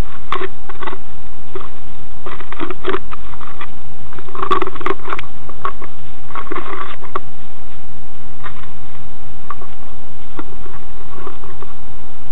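Scattered short scrapes and knocks of gloved hands handling a plastic bucket of cement mix, busiest in the first seven seconds and sparser after.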